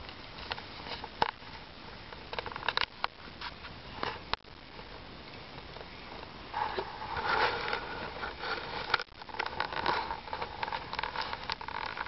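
Wood bonfire crackling, with sharp pops of burning logs scattered through it. The crackling grows denser and louder about six and a half seconds in.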